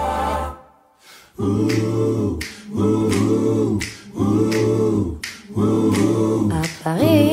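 Background music: an a cappella vocal group singing a short wordless phrase over and over, after a brief pause near the start.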